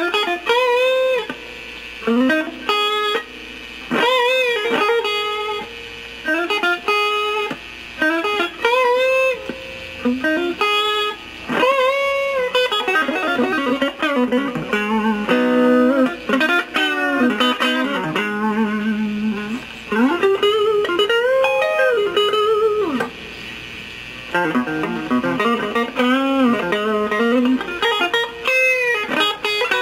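Clean electric guitar from an ES-335-copy semi-hollow on its humbuckers, played through a Kokko Mini Compressor pedal. It plays lead phrases of single notes and chords, many notes bent up and back down in pitch, with short pauses between phrases.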